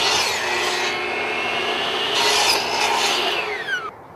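Electric power saw cutting along a long wooden board as it is fed through: a steady motor whine with the rasp of the blade in the wood, the pitch sagging and shifting under the load. The cut stops suddenly about four seconds in.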